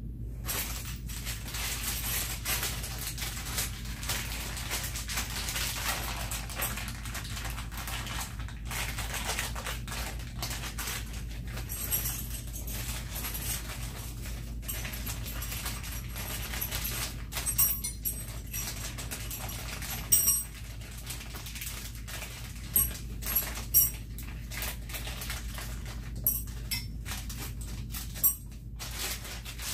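Small metal screws and fittings clinking as they are handled from a plastic hardware bag, with a few sharp clicks in the second half, over a steady low hum.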